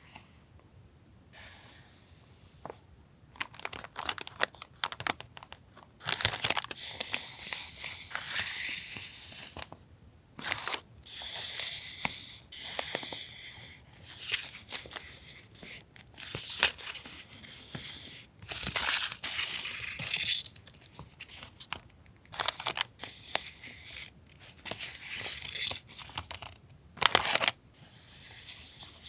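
Paper and plastic packaging of a stationery haul being handled and opened: repeated crinkling and rustling in short and longer bursts, starting a few seconds in.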